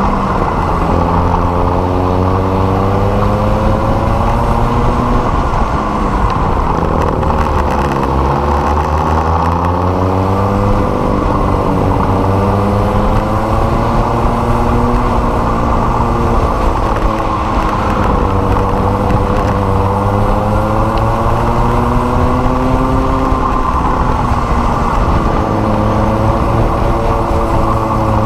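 Racing kart engines at race pace, close to the microphone: the pitch climbs along the straights, drops sharply about eight seconds in as the karts slow for a corner, then climbs again, with smaller dips and rises later.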